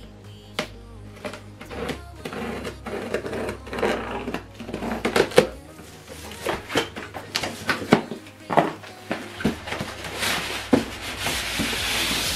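Cardboard box being opened by hand: irregular clicks, taps and rustles from the tape and flaps, then a longer scraping rush near the end as the foam-packed contents are pulled up out of the box.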